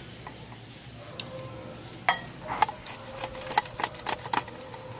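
Peeled ripe mango being grated on a stainless steel box grater standing in a ceramic bowl: irregular metallic scrapes and clicks, with the grater clinking against the bowl.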